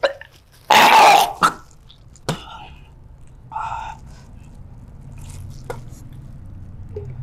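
A man retching and coughing into a bag: a loud heave about a second in, a shorter one just after, then a quieter throaty heave near four seconds.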